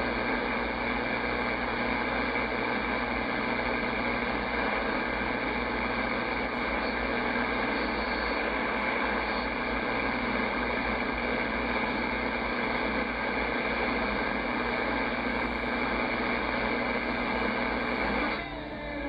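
Steady shortwave static hiss from a Yaesu FTdx10 transceiver's speaker while the dial is tuned quickly across the 19-metre band between stations. The hiss dips near the end as the receiver comes onto a station.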